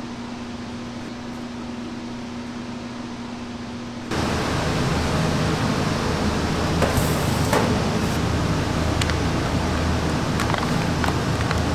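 Steady hum of kitchen ventilation fans. About four seconds in it steps up to a louder, rumblier fan noise, with a few light clicks and plastic crinkles as a vacuum-sealed bag of short ribs is handled and slit open.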